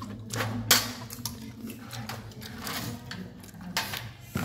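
Table noise of a meal: scattered clicks and clinks of spoons against ceramic bowls and plates, the sharpest about three-quarters of a second in, over a low steady hum.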